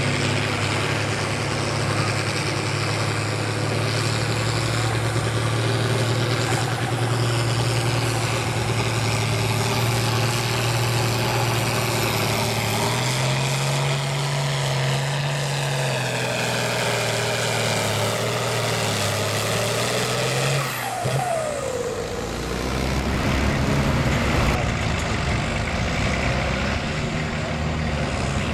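Diesel farm tractor engine running hard under full load as it pulls a weight-transfer sled down the track, with a steady high-revving drone. About three-quarters of the way through, the revs fall away as the pull ends, and a deeper engine sound follows.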